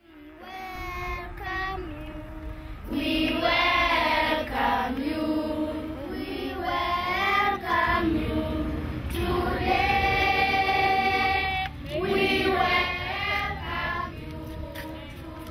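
A group of children singing together, in phrases with long held notes, growing louder about three seconds in.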